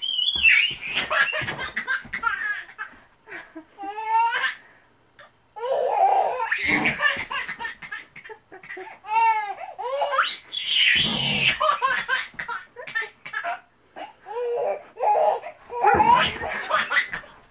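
A baby laughing in several bouts, with short breaks between.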